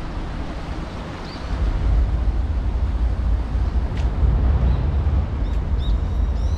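Wind buffeting the microphone during a bike ride: a steady rushing noise with a heavy low rumble that grows stronger about a second and a half in. A few faint high chirps come near the end.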